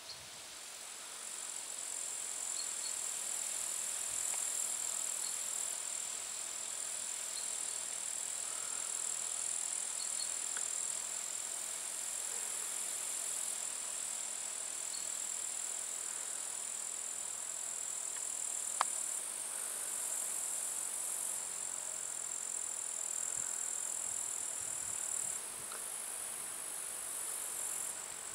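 Insects in the summer grass shrilling: a steady, high-pitched buzz that swells and eases in steps, with one sharp click about two-thirds of the way through.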